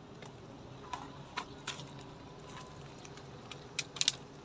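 Light footsteps in slippers on rock and a plastic water bottle crinkling in the hand, a few scattered sharp clicks. About four seconds in, a quick pair of louder plastic clicks as the bottle is set down on the rock.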